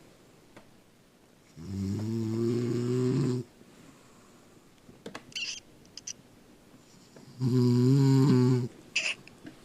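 A woman snoring loudly: two long, droning snores about six seconds apart, each lasting one to two seconds, with a few faint short hisses between them.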